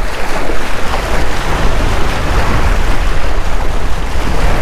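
Small waves washing and splashing against jetty rocks, with wind buffeting the microphone in a steady low rumble.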